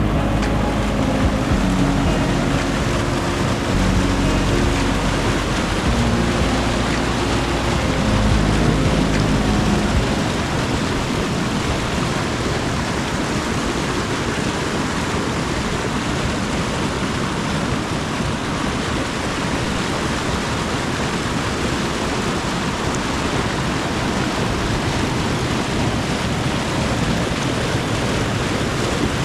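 Steady rushing noise, with a low hum of steady tones underneath that stops about ten seconds in.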